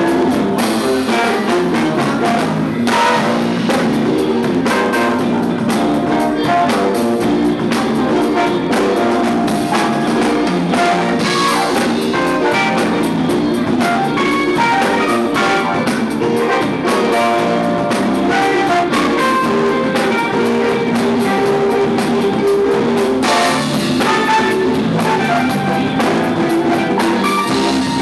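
Live band playing an instrumental tune: electric guitar, bass and drum kit, with a keyboard, loud and continuous.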